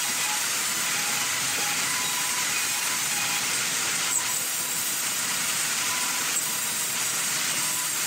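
Large vertical band saw running through a timber slab: a steady hissing noise with a faint steady whine, and a single brief click about four seconds in.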